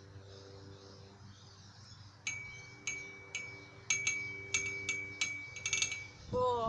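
Trampoline springs pinging with a metallic ring on each bounce, about one every half second, starting about two seconds in and ending in a quick flurry, over a faint steady hum.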